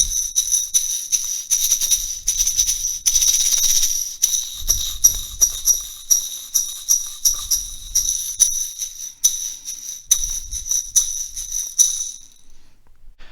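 Homemade shaker, a jar filled with beads, shaken in a steady rhythm of quick strokes, with a brief continuous shake about three seconds in. It stops shortly before the end.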